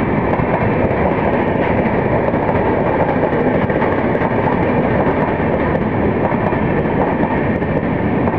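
Tejas Rajdhani Express LHB coaches running past at speed. There is a loud, steady rush and rumble of wheels on rail that does not let up.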